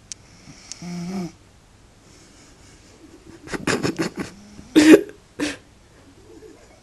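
A sleeping person snoring. There is a short pitched snore about a second in, then a cluster of quick, choppy snores about halfway through, with the loudest near five seconds.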